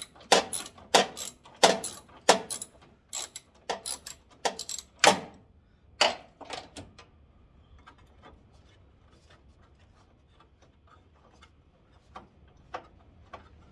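Ratchet wrench turning a fastener, its pawl clicking in quick pairs about every half second, then stopping about seven seconds in as the part comes loose; faint light ticks follow.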